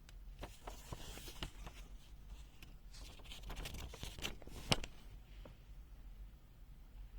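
Faint handling noise from a pocket multimeter being held and worked by hand: scattered light clicks and rustling, with one sharper click a little under five seconds in.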